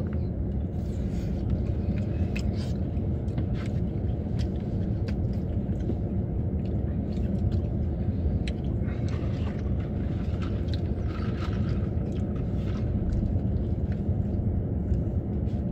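Steady low rumble of a running vehicle heard from inside its cabin, with chewing and scattered light clicks of plastic forks against plastic bowls.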